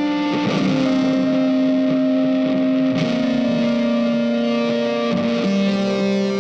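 Slow, calm background music of long held notes, the notes shifting about every two to three seconds.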